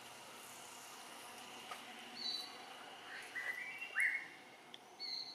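Forest birds calling: a few short high chirps and two rising whistled notes, the loudest about four seconds in, over a faint steady background hiss.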